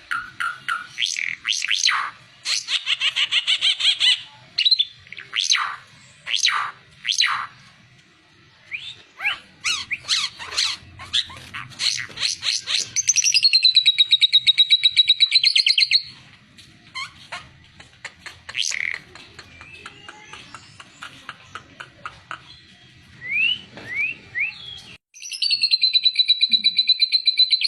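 A caged songbird, the 'ara mata merah' (red-eyed ara) of Indonesian bird-keeping, singing a varied masteran song. It gives quick sweeping chirps and whistles, broken by two long fast trills of evenly repeated notes, one in the middle and one near the end.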